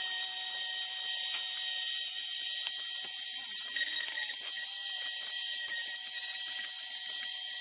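Bosch electric detail sander with a triangular pad running with a steady high-pitched whine while sanding a carved wooden figure.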